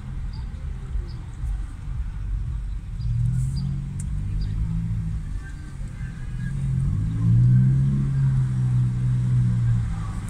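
Low engine rumble of slow city traffic heard from inside a car, swelling louder in the second half.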